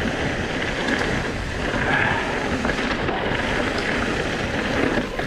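Mountain bike rolling fast down a loose, shaly dirt trail: a steady rush of tyre noise over the ground with low rumbling wind buffeting the microphone.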